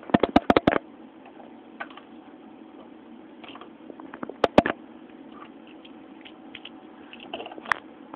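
Sharp clicks and taps in short clusters: a quick run at the start, a few about four and a half seconds in, and more near the end, over a faint steady hum.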